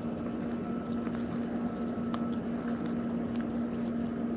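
A steady low mechanical hum over a soft, even background noise, with a few faint clicks.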